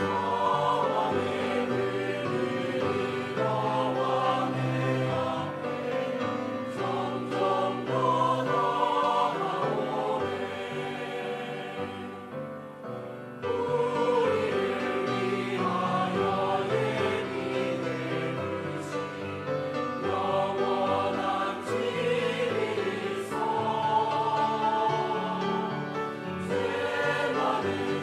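Church choir singing a hymn in several parts, with sustained chords. It grows softer for a moment about halfway through, then comes back in fuller.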